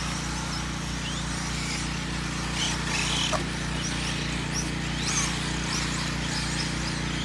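Electric 4x4 short-course RC trucks racing at a distance: many brief motor whines rising and falling with throttle, over a steady low hum.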